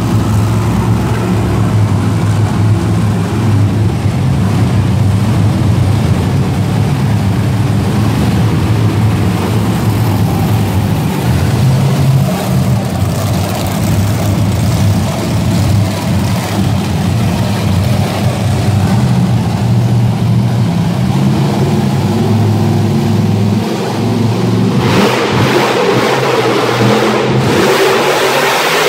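Monster truck engines running loud, supercharged V8s giving a steady deep drone with some revving. The sound changes about 25 seconds in.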